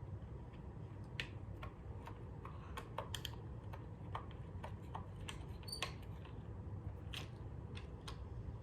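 Scattered small, irregular clicks and taps of tools and metal hardware being handled while a bass guitar is disassembled, over a steady low hum.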